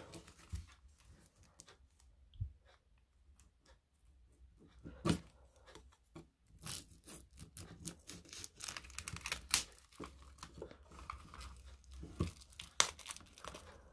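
Plastic shrink-wrap on a card deck being slit and peeled off. A few sharp snaps come first, then busy crinkling and tearing from about halfway on.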